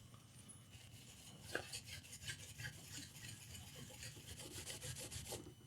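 Faint rubbing and scratching of small tools being handled over a laptop motherboard, a run of light, irregular scrapes from about a second and a half in until near the end.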